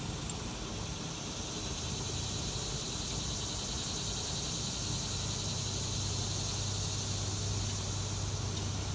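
Steady background hum and hiss, with the low hum growing stronger about halfway through; no distinct tool or knocking sounds stand out.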